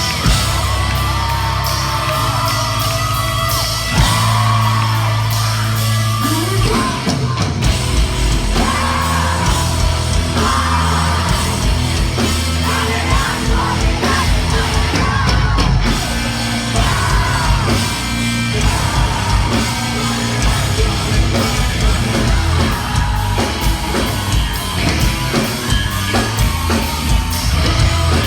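Live post-hardcore rock band playing loud, with yelled and sung vocals over a heavy low end that echoes in a large hall.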